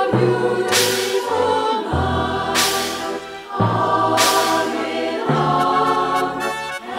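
Choir singing in harmony, holding sustained chords over a low bass line.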